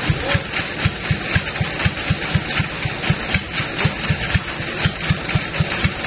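Diesel engine running steadily at a slow, even beat of about four low thumps a second.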